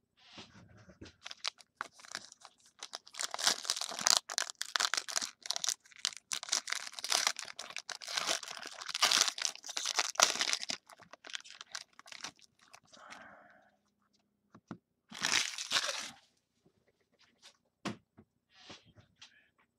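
Foil wrapper of a 2016 Playbook football card pack being torn open and crumpled by hand: dense crinkling and tearing for about eight seconds, then two shorter bursts of crinkling and a few light clicks near the end.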